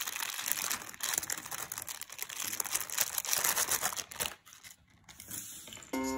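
Clear plastic polybag crinkling as it is opened and the small plastic building pieces are tipped out, with many light clicks and rattles. It goes quieter about four seconds in.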